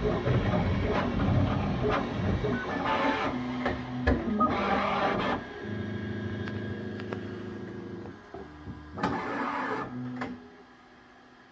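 Bambu Lab X1 Carbon 3D printer running a print: its motors whine in steady tones that shift pitch as the print head moves. There are louder rushing stretches about three to five seconds in and again about nine to ten seconds in, and then the sound drops much quieter near the end.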